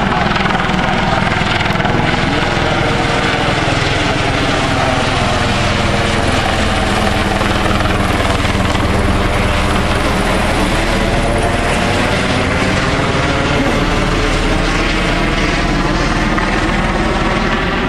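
A Eurocopter EC120 police helicopter circling overhead: steady rotor and turbine noise. It has a hollow, phasing sweep that slowly falls about halfway through and then rises again as the helicopter passes around.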